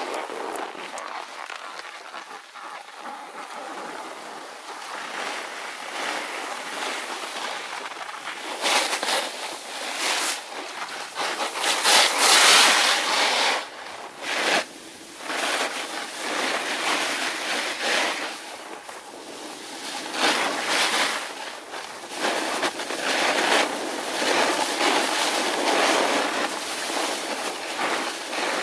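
A snowboard sliding and carving down a groomed piste: the board's edge scraping and hissing on packed snow in uneven surges, loudest about twelve seconds in, mixed with wind rushing over the microphone.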